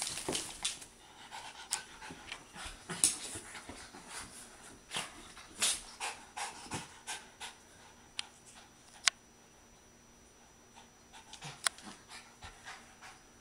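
A freshly bathed Pomeranian panting as it rubs and rolls on a towel on a hardwood floor, with irregular scuffling rustles and a few sharp clicks. The scuffling thins out after about seven seconds.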